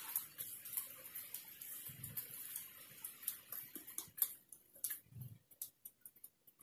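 Faint, irregular ticks and light rustling as weeds and twigs are pulled by hand from dry mulch and soil, with a couple of soft low thuds.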